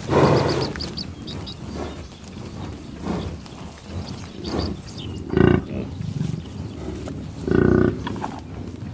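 American bison grunting: a loud breathy blast at the start, then two deep, pitched grunts about five and a half and seven and a half seconds in.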